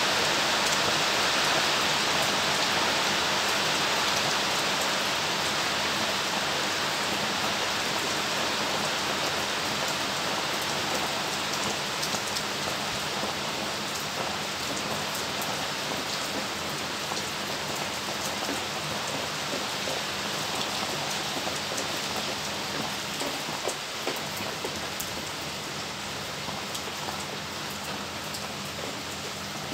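Steady rain falling: a dense, even hiss with scattered individual drop ticks, growing gradually softer over the stretch.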